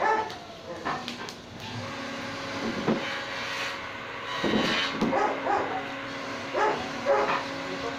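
A dog barking several times, in short separate barks, over a steady low hum.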